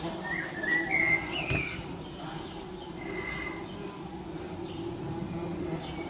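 Songbirds chirping and whistling in short phrases, loudest about a second in. Beneath them runs a steady low buzz of bumblebees swarming around their disturbed nest.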